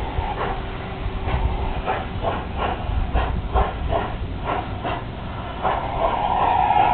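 Large-scale garden-railway steam locomotive chuffing in an even beat of about two chuffs a second over a low rumble, with a longer, higher sound near the end.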